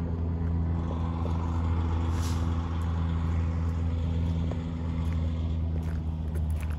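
Heavy diesel engine idling steadily, a low even hum. There is a brief hiss about two seconds in and a few footsteps on gravel near the end.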